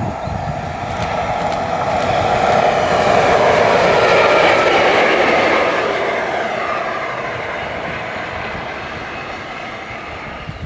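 An electric locomotive running light, with no train behind it, passing at speed: the noise of its wheels on the rails grows to a peak about four seconds in, then fades as it moves away.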